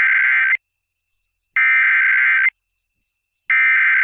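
Emergency Alert System SAME header: three identical buzzing two-tone digital data bursts, each about a second long and about a second apart, the third running past the end. It is the coded header that opens an EAS warning message.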